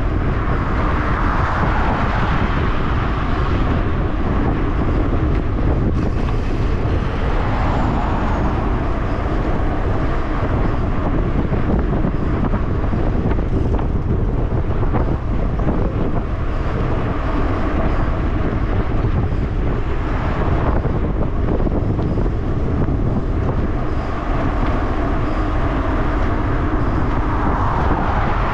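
Steady wind rush buffeting a handlebar-mounted camera on a mountain bike riding fast on a road. Passing traffic swells up and fades a few times, once more near the end as a car goes by.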